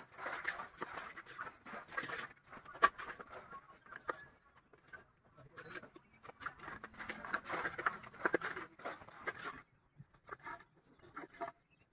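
Cement plaster being thrown and trowelled onto a brick wall: scattered slaps, knocks and scrapes, with indistinct voices in the background. It thins out and goes fainter near the end.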